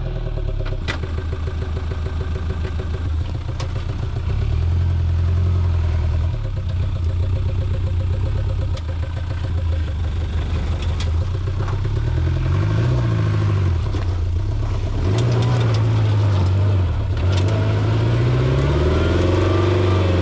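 Land Rover Series II engine running and revving under load as the truck is driven off-road in rear-wheel drive only, its pitch rising and falling several times in the second half. A few sharp knocks are heard along the way.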